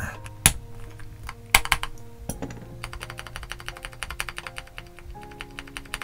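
Stabilized keys on a MelGeek Modern97 mechanical keyboard with Kailh Pixel Tactile switches being pressed to test the stabilizers. Two sharp clacks come early, then rapid repeated presses from about three seconds in. The stabilizers show only the slightest tick. Background music plays underneath.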